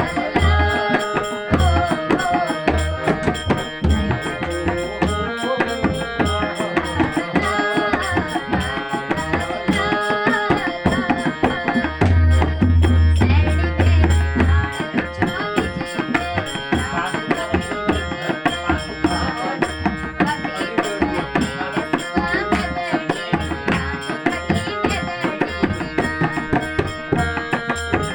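Kumaoni folk song music: a hand drum keeps a steady, driving beat under a melody line.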